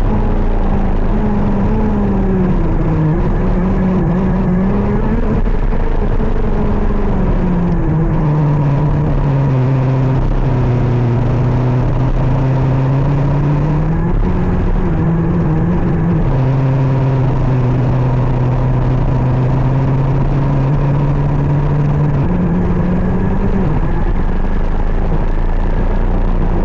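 KZ 125 shifter kart's 125cc two-stroke engine running hard, its pitch rising and falling through the corners, with a few sudden steps in pitch.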